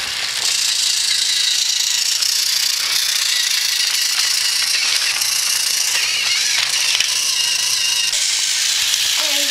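Battery-powered Thomas & Friends toy train motors whirring and rattling steadily on plastic track, with a few light plastic clicks as the toy engines are handled.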